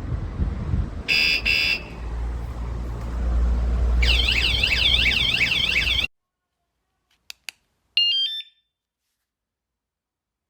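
Fosmon 113 dB bike alarm sounding over a low rumble: two short chirps, then a warbling siren that cuts off abruptly. After a few seconds of silence come two faint clicks and a brief stepped run of beeps.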